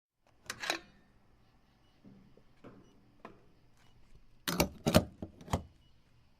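Gas pump being handled before fuelling: a clatter about half a second in, a few light clicks, then a cluster of four loud clunks.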